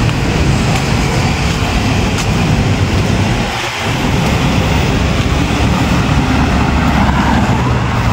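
Traffic on a multi-lane highway passing close by, vehicle engines running in a steady loud stream, with a brief lull about three and a half seconds in.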